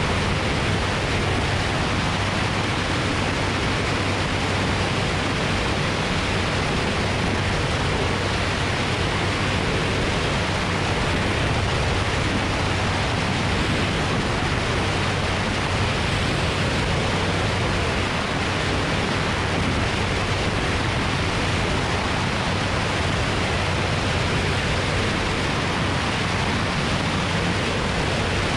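Steady rush of wind over a camera mounted on the outside of a single-engine light aircraft in cruise, with the engine and propeller's low, even drone underneath.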